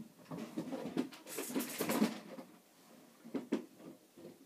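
Off-camera rummaging: a jumble of knocks and rustling for about two and a half seconds, with a brief bright rustle in the middle, then a few separate knocks near the end.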